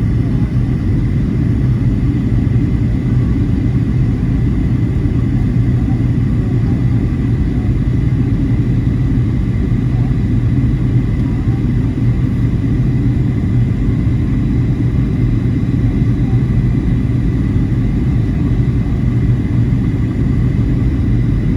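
Steady low drone inside a jet airliner's passenger cabin: engine and airflow noise, with a faint steady high tone riding on top.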